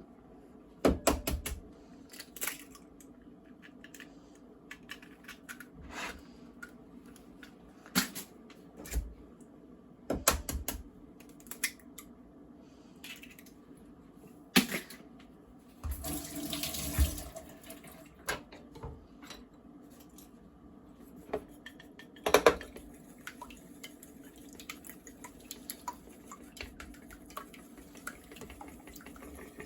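Kitchen sink work: scattered knocks and clinks of dishes and utensils, with a short rush of noise about halfway through. Water runs from a tap through the last several seconds.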